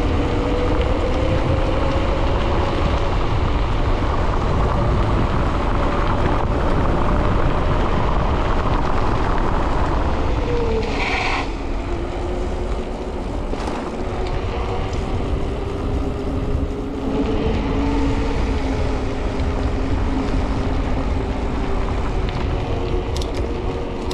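Mountain bike coasting fast down a wet asphalt road: wind rushes over the microphone and the wheels give a humming tone. The tone drops as the bike slows into a bend about eleven seconds in, with a short hiss there, then rises again with speed.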